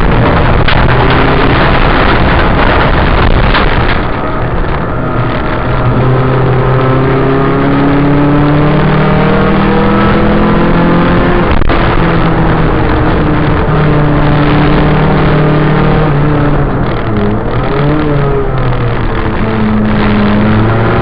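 Ford Escort RS2000 rallycross car's engine heard from inside the car under hard racing load. It revs up repeatedly, the pitch climbing and then falling back at each gear change.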